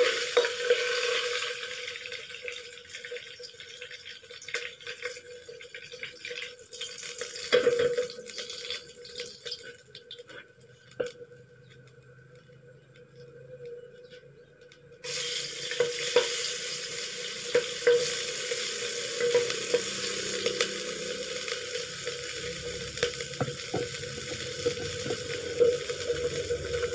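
Oil sizzling in a nonstick wok as pieces of sun-dried tilapia are fried and turned with a spatula, with scrapes and knocks of the spatula; the sizzle dies down. About halfway a louder sizzle starts suddenly, as chilies and garlic fry in the hot oil, with more spatula clicks.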